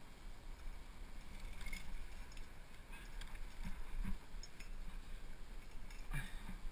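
Wind noise on a helmet-mounted action camera, with a handful of short scrapes and taps as a climber's hands and shoes move on the rock, the loudest near the end.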